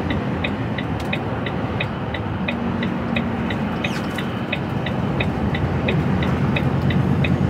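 Lorry's turn indicator ticking evenly, about three ticks a second, heard inside the cab over the steady drone of the truck's diesel engine and tyre noise while driving on the motorway.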